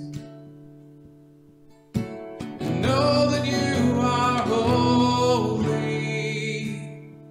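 A man sings a worship song while strumming an acoustic guitar. A chord rings out and fades at first. A new strum comes about two seconds in, he sings one line from about three seconds to about six, and the last chord fades away.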